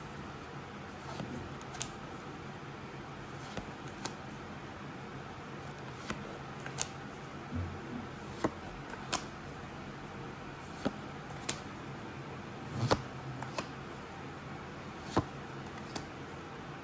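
Pokémon trading cards being handled and flipped through: scattered short clicks and taps at irregular intervals, the sharpest about 13 seconds in, over a steady low hum.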